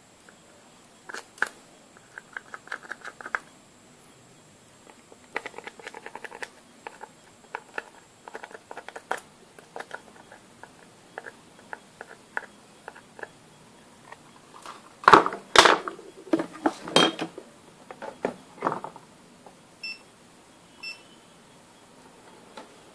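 A small hand tool scratching and clicking against the solder side of a subwoofer amplifier circuit board in irregular taps and scrapes, with a louder burst of clatter about fifteen seconds in. Two faint short beeps come near the end.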